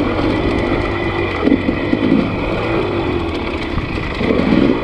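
Dirt bike engine running steadily at low speed on a downhill trail, with louder uneven spells about a second and a half in and again near the end.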